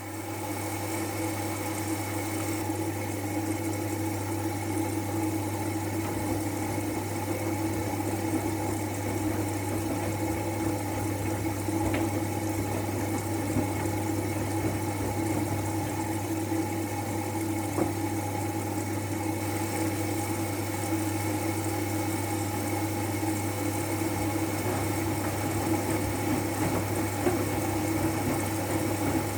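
Siemens i-Dos washing machine running on its wool/delicate/silk programme, a steady even mechanical hum that comes on right at the start.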